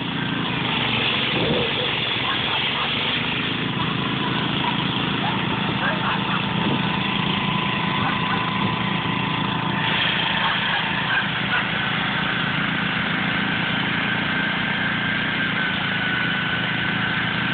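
Two garden-tractor engines, a John Deere 314's and an Ariens', running steadily together while the tractors pull against each other in a tug-of-war. There is a slight change in tone about ten seconds in.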